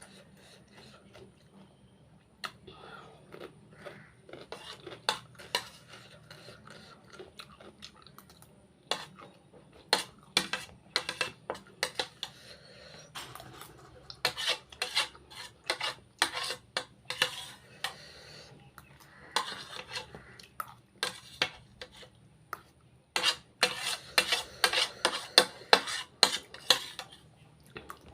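Cutlery clinking and scraping against a plate of fried rice and noodles while eating: soft at first, then many sharp clicks in quick runs.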